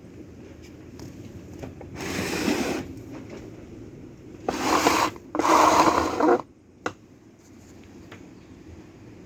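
Heavily rusted Kawamoto N3-206SH well pump making a bad abnormal noise: a steady low hum with three loud, harsh scraping noises, the last ending in a sharp click.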